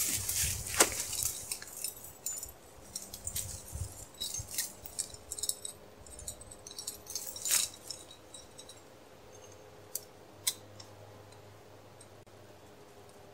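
Metal clinks and rattles of a Z-trap dog-proof raccoon trap and its chain being handled and set, with rustling of dry brush. It is busy with clicks in the first half, then a few sharp single clicks and little else near the end.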